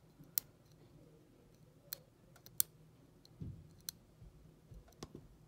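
Irregular sharp metallic clicks of a lock pick and tension wrench working the pins in the keyway of a five-pin Ace closed-shackle padlock, with a few dull knocks from handling the lock about three and a half seconds in.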